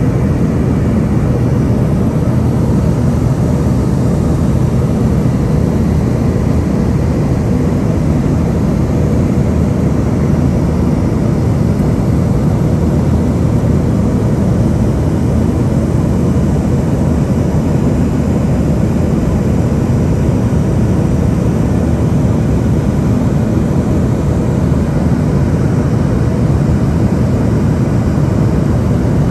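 Steady engine and airflow noise inside the cabin of an Embraer ERJ145 climbing out after departure, from its rear-mounted Rolls-Royce AE3007 turbofans. It is a deep, even rush with a faint steady tone above it.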